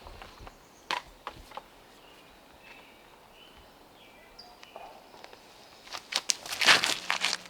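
A quick run of footsteps, a disc golfer's run-up to a throw, about six seconds in and the loudest sound. Before it come a few scattered clicks about a second in and faint bird chirps.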